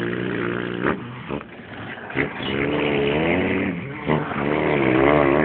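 A man imitating a truck engine with his mouth. A steady humming drone breaks off with a few clicks about a second in, then comes back as a wavering, revving-up drone that gets louder toward the end.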